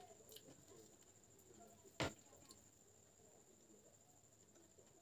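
Near silence: room tone with a faint steady high-pitched whine, and one short click about two seconds in.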